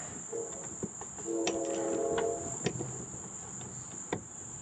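Wrench tightening a lawn mower blade bolt: a few scattered clicks and knocks, with a short squeak lasting about a second near the middle as the bolt draws tight. A steady high-pitched whine runs underneath.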